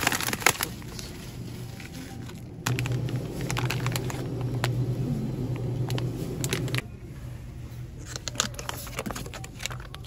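Plastic food packaging crinkling and crackling as packs are picked up and handled, over a steady low hum that grows louder for about four seconds in the middle.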